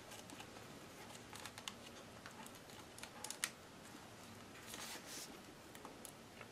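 Faint small clicks and light plastic handling sounds as the laptop's battery cable is plugged back into its motherboard connector.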